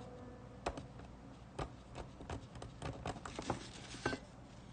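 Scattered light clicks and taps of small metal hand tools and camera parts being handled and set down on a work mat, most crowded between about two and a half and three and a half seconds in.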